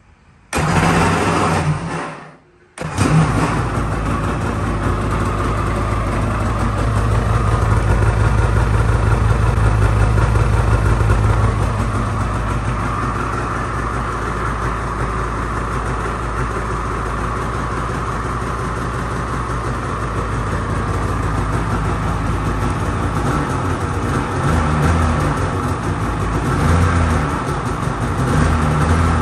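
Polaris Indy VR1 850 snowmobile's 850 two-stroke twin starting through its stock exhaust. It fires about half a second in. The sound drops out briefly around two seconds in, then the engine runs steadily for the rest, a little louder for several seconds early on.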